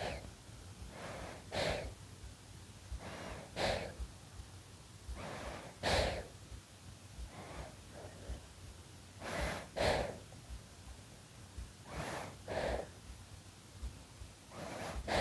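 A six-month-old baby breathing in its sleep, close to the microphone. About six breaths come through, each a quick in-breath and then an out-breath, every two to three seconds, with a longer pause in the middle.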